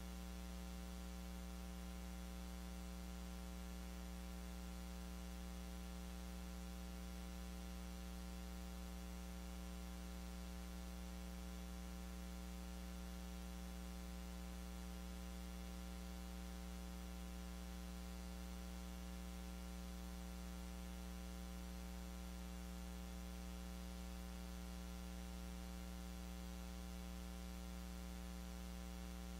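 Steady electrical mains hum with a buzzing row of higher overtones, unchanging throughout, with no other sound above it.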